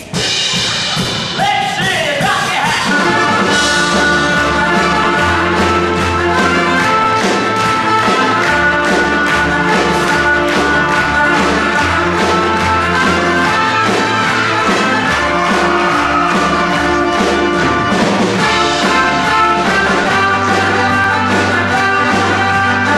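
Upbeat music with a steady beat and a moving bass line.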